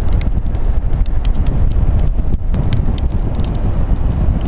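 Strong wind rumbling on the microphone, with many sharp irregular clicks scattered through it.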